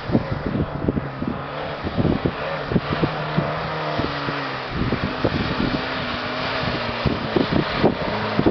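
Off-road vehicle engine running under way, its pitch stepping up about halfway through, over irregular knocks and rattles from the vehicle jolting over rough ground.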